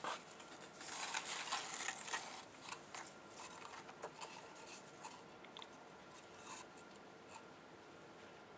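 Fabric and tissue paper rustling and crinkling as a large piece of printed cloth is handled and lifted out of a cardboard box. The sound is busiest in the first three seconds, turns to scattered light crackles, and dies away after about six seconds.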